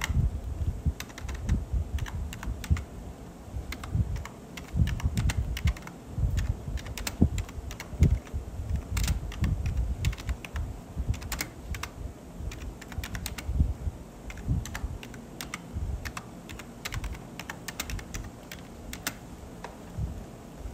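Irregular clicking and tapping, several clicks a second in uneven runs, like typing on a keyboard, with dull low thumps mixed in.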